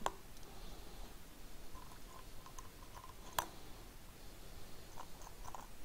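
Light clicks and ticks of small metal hardware being handled as spacers are fitted onto cap screws, with a sharp click right at the start and another about three and a half seconds in.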